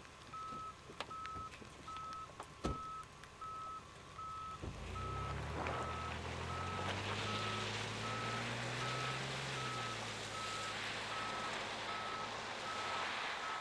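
An electronic beep repeats about three times a second throughout. A few sharp knocks come early. About five seconds in, an SUV's engine note rises as the vehicle pulls away on the wet road, and a growing hiss of tyres on wet pavement follows it, its engine pitch rising and then falling as it drives off.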